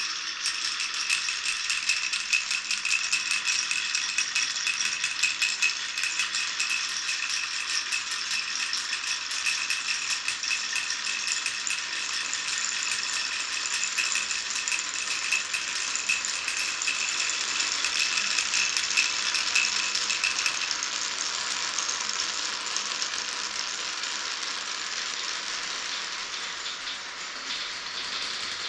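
Many glass marbles rolling and clattering through a wooden marble run, a dense continuous rattle of small clicks. A steady high ringing sits under the clicks and stops about two-thirds of the way through.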